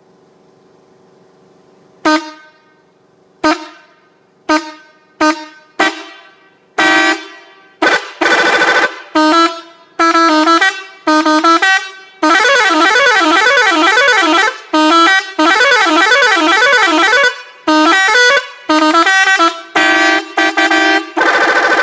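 Pakistani bus horn, a multi-tone musical horn, sounding. Short toots a second or more apart come faster and longer, then a long blast about twelve seconds in warbles up and down in pitch for several seconds, followed by more short blasts.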